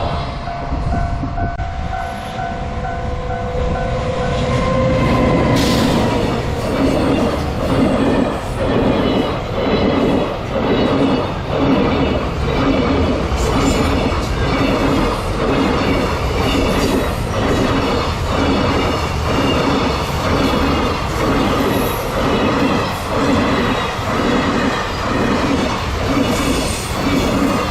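Freight train hauled by a JR Freight EF210 electric locomotive passing, with steady tones sounding over the first five seconds or so. From about six seconds in, the freight wagons roll by with a steady rumble and a clatter that repeats about once a second.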